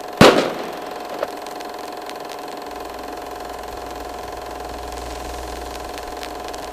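Logo-reveal sound effect: one sharp hit about a quarter second in, then a steady droning hum that deepens a little under three seconds in.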